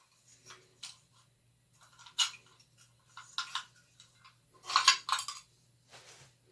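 Rusty antique iron gate lock and its key being handled, metal parts clinking and scraping in a series of uneven clicks, loudest around five seconds in.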